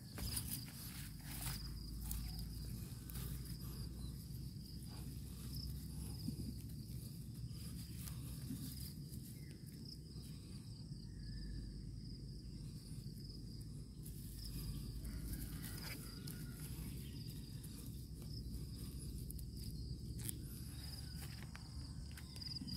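Steady high insect drone over a constant low rumble on the microphone, with a few soft rustles and footsteps in dry rice straw.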